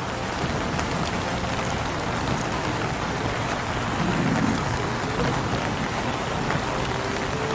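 Steady, even hiss like rain falling on a surface, with no clear tones, swelling slightly about four seconds in.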